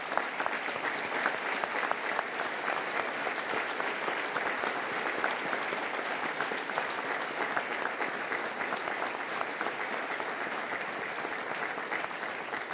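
A large seated audience applauding steadily, tapering off near the end.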